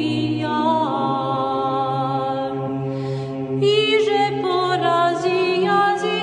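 Orthodox Byzantine-style chant sung by a vocal choir, a melody line over a steady low held drone. The melody thins briefly about three seconds in, then the voices come back in fuller.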